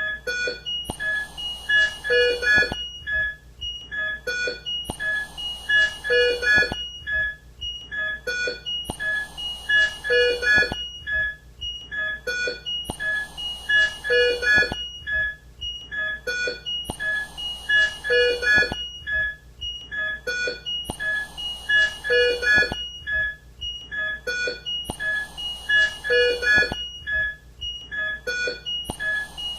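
Intensive-care ambience: a mechanical ventilator delivering a breath about every four seconds, each one a rush of air lasting a second or two. Over it, a repeating pattern of short electronic alarm beeps from the bedside monitoring equipment.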